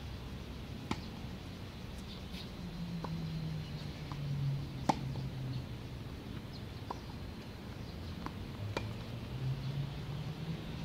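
Tennis balls struck by racquets: a series of sharp pops a second or two apart, the loudest about five seconds in, over a low hum that wavers in pitch.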